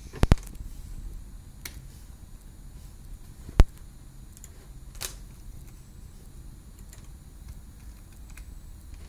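Sharp single clicks at irregular times over a faint low hum: a quick double click just after the start, the loudest click about three and a half seconds in, and a few fainter ones in between.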